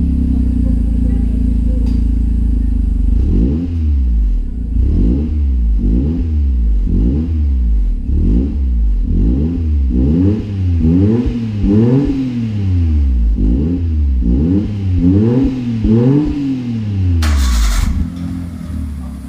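Hyundai EON's three-cylinder engine through an aftermarket full exhaust system, idling at standstill and then blipped repeatedly, more than a dozen quick revs about one a second, each rising and falling back, before settling to idle near the end.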